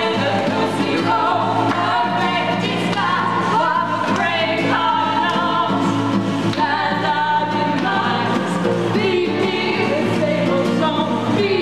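Two women singing together, accompanied by an acoustic guitar.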